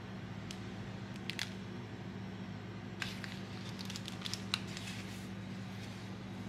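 Clear plastic cake bags crinkling under gloved fingers: a few light crackles, then a denser run of crinkling about three seconds in, over a steady low hum.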